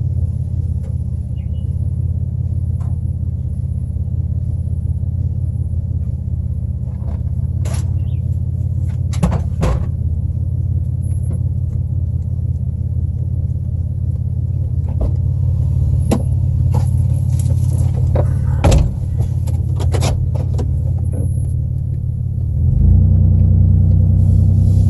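Pickup truck engine idling steadily, heard from inside the cab, with scattered knocks and clanks. Near the end the engine speeds up and grows louder.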